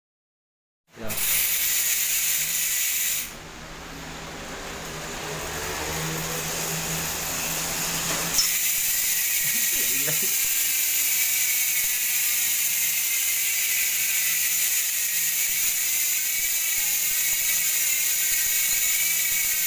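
Bicycle rear hub's freewheel ratchet buzzing as the wheel spins freely, a dense high-pitched whirr of pawl clicks too fast to count; the hub has been modified to make it louder. It starts about a second in, drops briefly, builds back up over several seconds, then holds steady.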